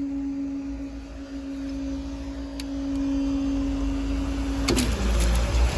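A steady mid-pitched hum holds, then cuts off suddenly about three-quarters of the way in with a few sharp clicks. A low rumble then builds, typical of a train drawing near the level crossing.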